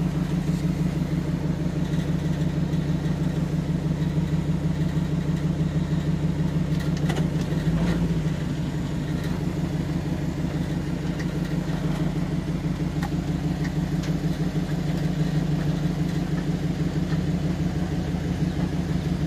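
Pickup truck engine running steadily at low revs, heard from inside the cab, with an even, fast throb as the truck crawls over sand. There is a brief low thump about eight seconds in.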